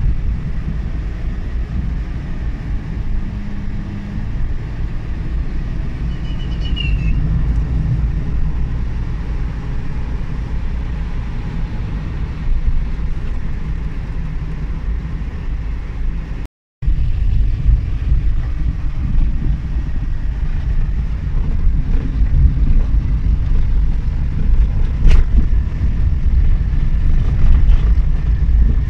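Cabin noise of a Suzuki Every Wagon DA17W under way at low revs: a steady low rumble of road noise and its R06A turbo three-cylinder engine. The sound cuts out completely for a moment about two-thirds through.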